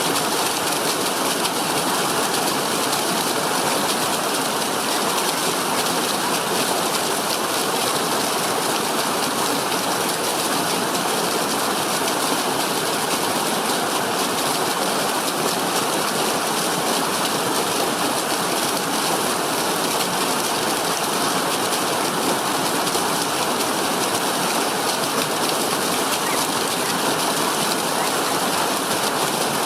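Waterfall pouring onto rocks: a steady, even rush of falling water with no breaks.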